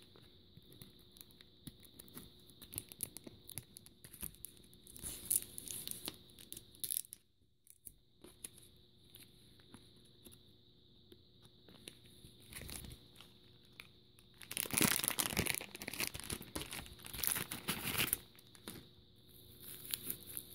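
Plastic packaging being handled and opened, crinkling and rustling in irregular bursts, loudest about a quarter of the way in and again about three-quarters through.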